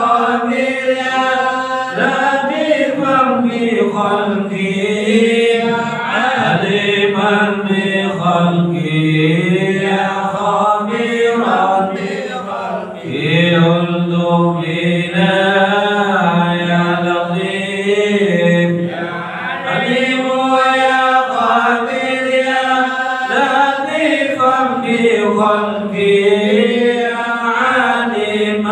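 Melodic Islamic devotional chanting: long drawn-out sung phrases with held, ornamented notes that rise and fall, pausing briefly between phrases.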